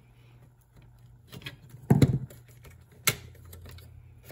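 Clicks and knocks of a screwdriver and hands working on the opened Blu-ray player's circuit boards and plastic chassis. A few light taps come first, then a louder knock about two seconds in and a sharp click about a second later.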